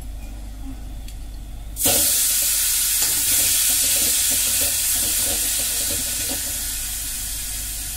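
Damp, freshly washed kodo millet flakes hit the hot fat in a steel kadai and sizzle loudly from about two seconds in. The sizzle slowly dies down as the flakes are stirred with a spoon.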